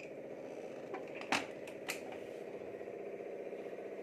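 Aluminium pressure cooker lid being fitted and locked shut: two sharp metal clicks about a second and a half in, over a steady background hum with a fast, fine rattle.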